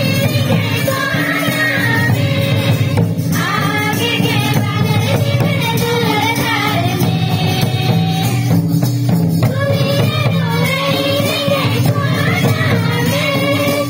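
A group of girls and young women singing a Sarna bhajan (devotional song) together into microphones, amplified through PA loudspeakers. The melody runs in long held phrases with brief breaths between lines.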